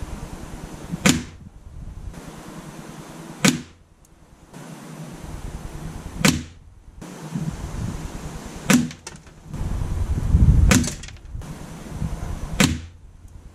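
Anschutz 9015 air rifle shots, heard at the target end: about six sharp cracks of pellets striking the paper card and wooden backboard, one every two to three seconds, each with a short echo. Gusty wind rumbles underneath and is strongest just before the fifth shot.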